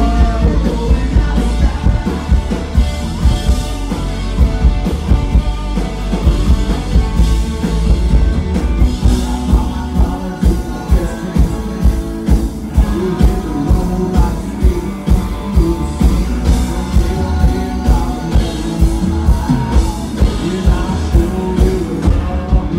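Live country band playing loudly: a steady drumbeat of about two hits a second under acoustic guitar and fiddle, with a man singing.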